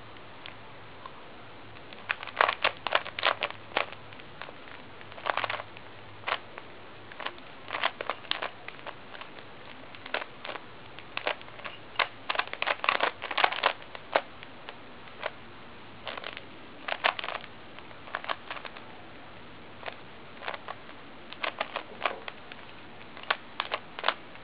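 Rubik's cube layers being turned quickly by hand: clusters of rapid plastic clicks and clacks, in bursts of fast turns broken by short pauses.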